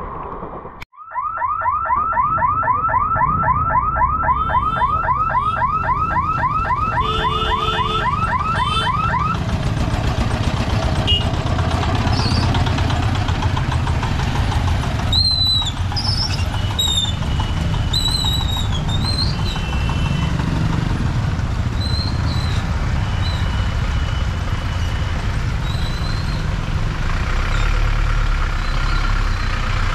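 An electronic warning siren, a rapid repeating rising warble of about five sweeps a second, sounds for about eight seconds. It then gives way to the engines of motorcycles and cars idling and moving off, with a few short high toots.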